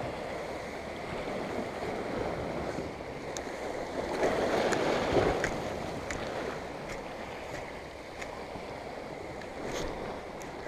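Sea waves washing and surging against shoreline rocks, the wash swelling about four seconds in, with faint scattered clicks over it.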